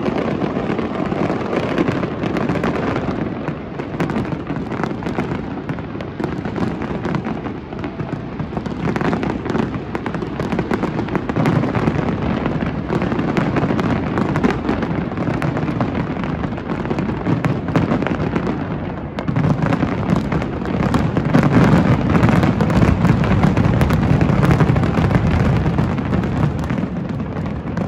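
Aerial fireworks display going off in a dense, continuous barrage of overlapping bangs and crackling. It swells louder about two-thirds of the way through, then eases slightly.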